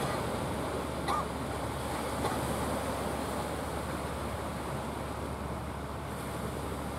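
Surf washing on the shore, with wind on the microphone. It makes a steady, even rushing noise.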